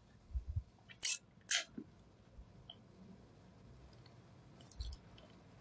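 A quiet room with a few faint, short clicks and taps close to the microphone: two sharper clicks about a second and a second and a half in, and a small cluster near the end.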